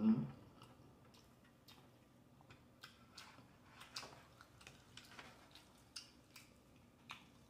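Close-miked eating sounds: baked chicken being chewed, with scattered soft, wet mouth clicks. A short hum from the eater opens it.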